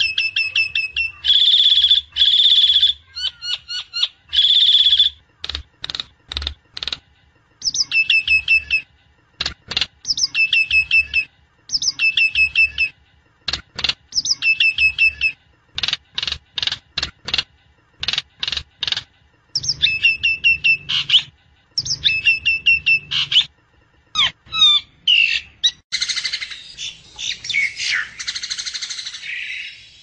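Black myna (sáo đen) calling: quick runs of short chirps and clicks repeated in bursts, with some held whistled notes in the first few seconds. From about four seconds before the end the calls turn to a harsh, grating chatter.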